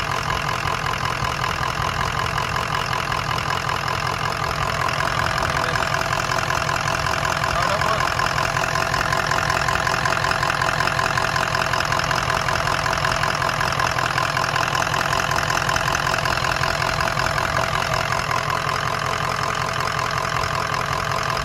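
Ford 6.0 Powerstroke V8 turbodiesel idling with a steady diesel clatter while it warms up, getting a little louder about five seconds in.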